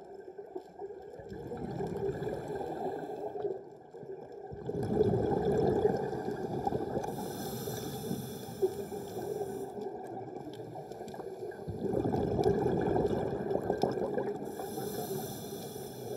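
Muffled underwater sound of moving water, swelling and fading in slow surges every few seconds, with a brief higher hiss twice.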